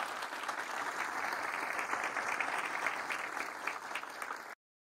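Audience applauding, a dense patter of many hands clapping that cuts off abruptly near the end.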